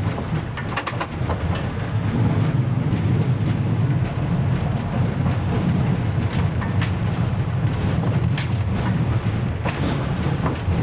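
Diesel railbus of the 'Ferkeltaxe' type running steadily along a branch line, heard from the cab: an even low engine drone with scattered clicks from the wheels on the track.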